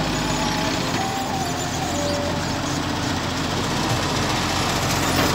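Diesel dump truck's engine running steadily as it drives slowly over a dirt surface.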